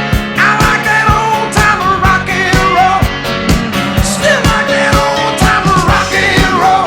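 Studio recording of a rock and roll song: a male lead vocal over a full band with a steady drum beat.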